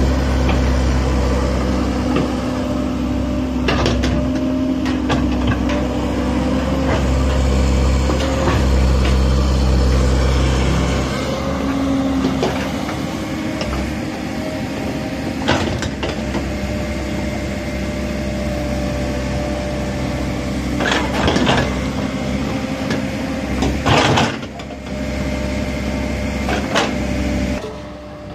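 Komatsu PC130 hydraulic excavator's diesel engine running under digging load, heavy and steady at first and easing off somewhat partway through. A few sharp knocks come from the bucket working earth and stone.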